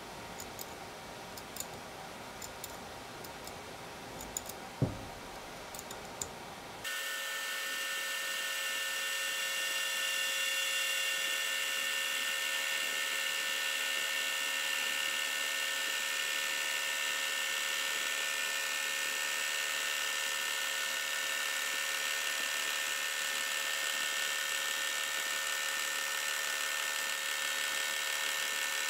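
Chuck key clicking and knocking as a four-jaw chuck is tightened on a South Bend 9A lathe. From about seven seconds in, the lathe runs with a steady, high-pitched whine while the tool bit cuts the bar stock in the chuck.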